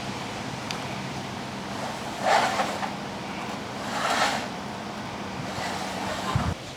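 A vehicle engine running steadily with a low hum, with two louder rushing swells partway through, then the engine cuts off abruptly near the end.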